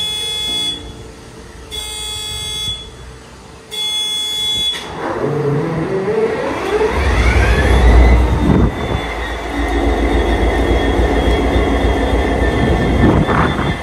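Class M11 diesel-electric locomotive's engine starting up: a whine climbs in pitch over about three seconds as the engine catches with a heavy low rumble, then settles into a steady run with a constant high whine. Before it, in the first five seconds, come three short choppy bursts of a steady tone.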